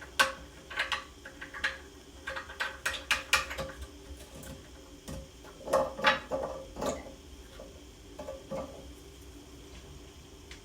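Hard plastic and metal clicks and knocks as a toilet handle and its lift arm are worked into place inside the tank. They come as a quick run over the first few seconds, a few more about six seconds in and one near eight seconds, then stop.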